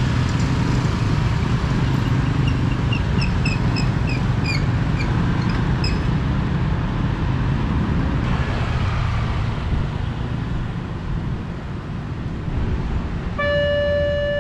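Road traffic and motorcycles running past a railway level crossing, with a series of short, high chirps a couple of seconds in. About a second before the end, the crossing's electronic warning alarm starts up with a steady tone.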